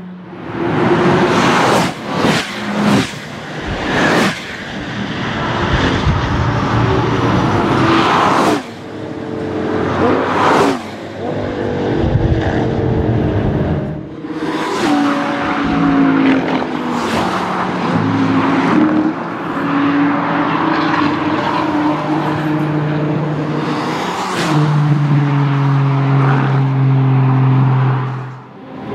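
A string of high-performance sports cars passing close by at speed, one after another, engines at high revs. In the second half the engine notes rise and then drop back at gear changes.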